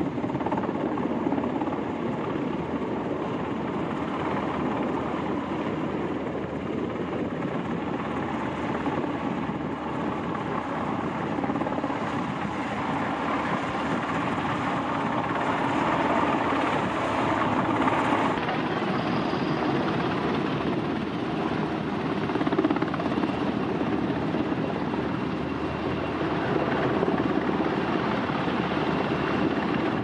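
Coast Guard helicopter hovering low over the water, with a steady, loud noise of rotors and engines.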